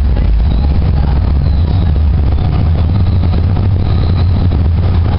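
Calgary C-Train light-rail car running, heard from inside as a loud, steady low rumble, with faint high-pitched whines coming and going.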